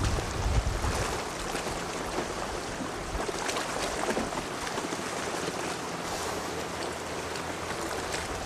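Wind buffeting the microphone over the steady wash of a choppy sea, an even hiss with a few low rumbling gusts in the first second.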